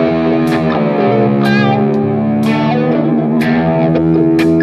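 Distorted electric guitar music: held notes that waver in pitch, over a beat with a sharp hit about once a second.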